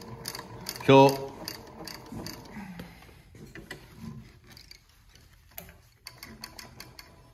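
Yamata FY-335A walking foot cylinder bed industrial sewing machine stitching slowly through many thick layers of fabric, a regular click with each stitch at about three a second over a faint motor whine. The stitching slows and stops partway through, with a few light clicks near the end.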